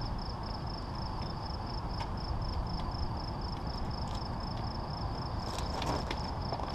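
Crickets chirping steadily at night, a high pulsing trill of about four or five chirps a second, over a low steady rumble. A few light clicks come near the end.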